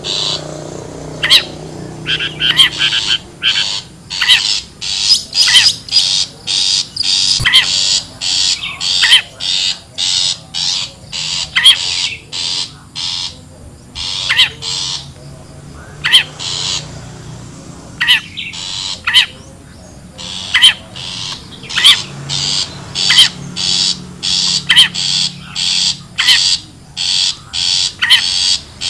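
Long-tailed shrike (cendet) calling: a long run of short, harsh, scratchy notes, roughly two a second, broken by a couple of short pauses. This is a lure recording of the wild shrike's call, used to draw shrikes in.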